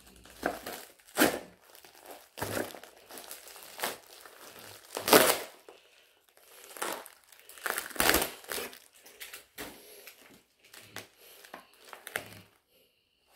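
White packaging wrapping being torn and crumpled by hand, in irregular bursts of crinkling and tearing. The loudest bursts come about five seconds in and again around eight seconds.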